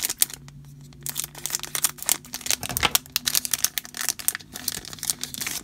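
Foil trading-card booster pack wrapper crinkling and crackling as it is cut and pulled open by hand, with a brief lull about a second in.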